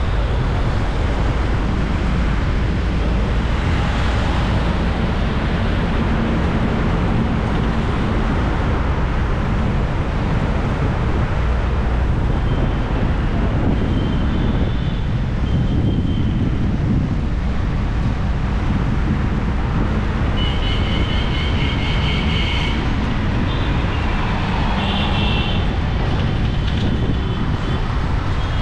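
Dense city road traffic: a steady loud rumble of engines and tyres. Short high-pitched signal tones sound over it now and then, mostly in the second half.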